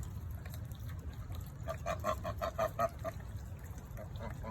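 Geese honking: a quick run of about ten short honks about two seconds in, then a few fainter honks near the end.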